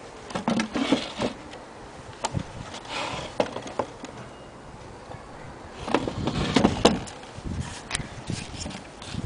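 Handling noise: scattered clicks, knocks and rustling as a gramophone and the recording camera are handled, with a louder cluster about six to seven seconds in.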